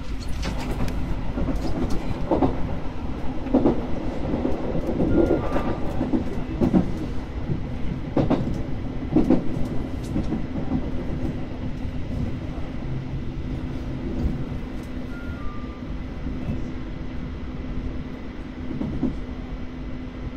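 Electric commuter train running along the track: a steady hum under irregular clacks of the wheels over rail joints, the clacks coming thicker in the first half and thinning out later. A short two-note descending beep sounds twice.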